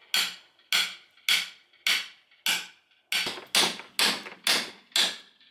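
A hammer striking a crowbar about ten times, roughly two blows a second, driving it into a wooden crate to pry the lid open.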